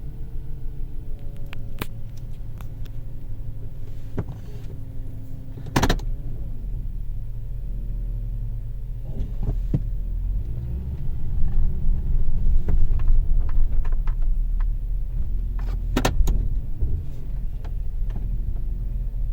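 2005 Toyota Tundra pickup on the move: a whine that slowly rises and falls in pitch over steady low road rumble, with a few sharp knocks along the way.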